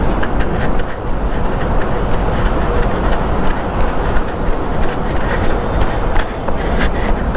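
Motorcycle riding fast through a road tunnel: steady rush of wind on the helmet camera's microphone over the engine, echoing off the tunnel walls.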